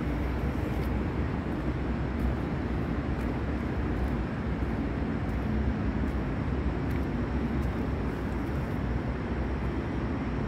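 Steady construction-site background noise: a low rumble with a faint machinery hum, and a few faint light ticks.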